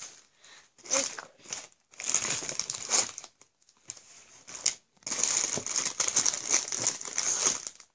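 Clear plastic packaging crinkling and rustling as packaged homemade squishies are rummaged through and handled, in several bursts with the longest through the second half.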